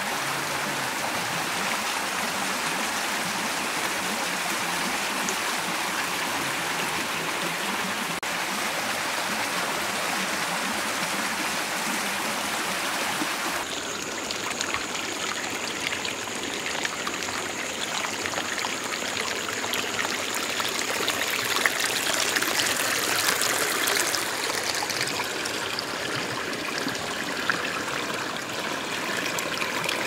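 A small forest stream running over rocks: an even, steady rush of water. About halfway through, the sound changes abruptly to a closer, brighter trickle and splash over stones, with a faint high steady tone behind it.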